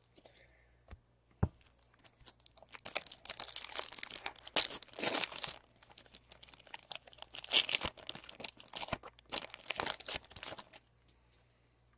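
A Topps Chrome trading card pack wrapper being torn open and crinkled, in two spells of tearing and rustling with a short lull between them. A single light knock comes about a second and a half in.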